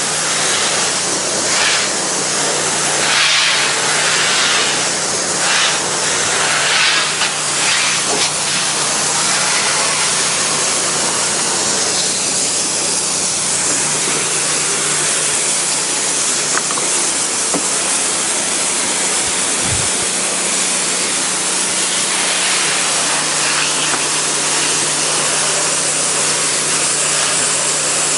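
Pressure washer spraying water onto painted wood decking at low pressure: a loud, steady hiss of spray over the steady hum of the machine. The hiss swells and fades several times in the first eight seconds, and there is a single brief low thump about twenty seconds in.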